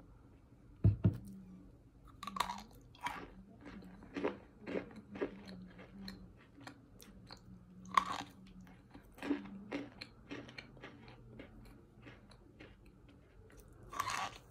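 Cornstarch chunks dusted with baby powder being bitten and chewed close to the microphone: a run of crisp, crumbly crunches, loudest at bites about two seconds in, midway and near the end. A dull thump comes about a second in.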